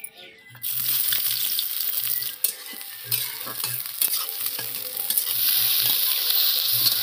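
Sliced onions frying in hot oil in a metal kadai: a loud sizzle that starts suddenly about half a second in, with a spatula stirring and scraping against the pan. Near the end the sizzle grows as raw chicken pieces fry in the pan.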